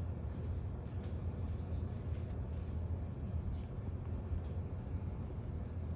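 Steady low rumble of distant city traffic and idling emergency-vehicle engines, heard from far above the street, with a few faint ticks.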